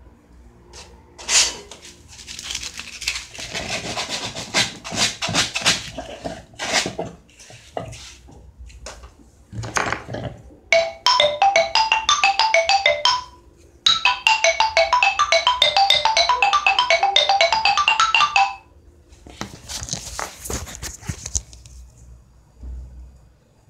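Seven-note pentatonic xylophone with guayubira wood bars, tuned D, E, G, A, B, D, E, played in quick runs of clear ringing notes in two spells of a few seconds each, about halfway through. Before the runs come scattered knocks and clatter.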